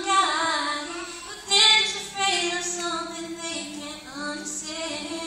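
A teenage girl singing solo into a microphone in long, held notes that glide and waver in pitch, with her acoustic guitar barely audible beneath.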